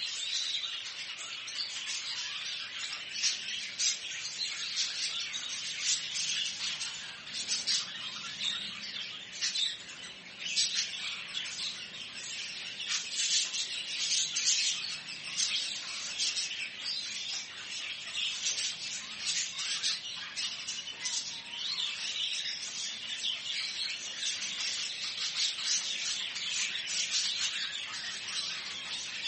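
Many small caged birds in a pet shop chirping and twittering at once, a dense unbroken chatter of high calls.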